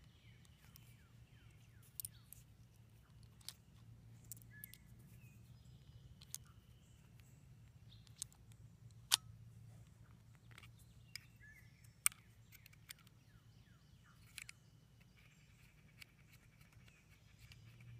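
Scattered small metallic clicks, about ten of them, the sharpest about nine seconds in, as .22 LR cartridges are seated one at a time in an RG 14 revolver's cylinder and the cylinder is turned and fitted back into the frame. Faint bird chirps sound in the background.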